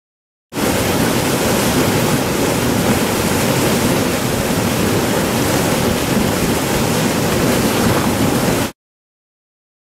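Rushing water of a small river cascade pouring over granite boulders into a pool, close to the microphone: a loud, steady rush that cuts in about half a second in and stops abruptly near the end.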